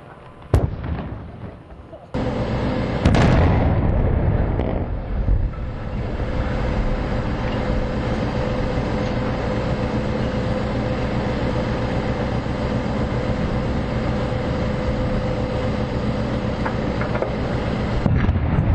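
Explosive demolition of a concrete exhaust stack: a sharp bang about half a second in, then a second blast about three seconds in followed by a long steady rush of noise with a faint even hum through it.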